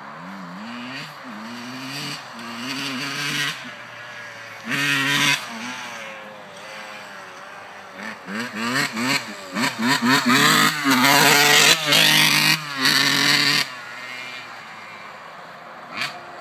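1991 Suzuki RM80 80cc two-stroke single idling and being revved in throttle blips, a few single blips early on, then a fast run of repeated blips before dropping back to idle. The engine bogs when the throttle is opened, a fault that a new carburettor and a cleaned air box have not cured.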